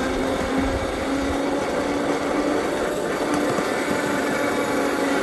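Miniature ride-on railway train running along its narrow-gauge track: a steady mechanical rumble of wheels on rail with a hum that wavers on and off.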